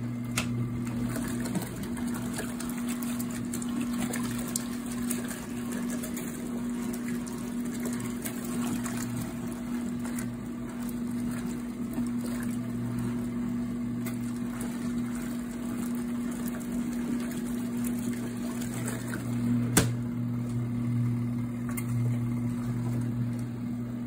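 Compact single-tub portable washing machine running its wash cycle: the motor hums steadily while the agitator churns clothes in soapy water. One sharper knock near the end.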